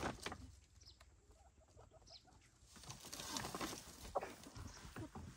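Chickens clucking, amid scattered knocks and rustling.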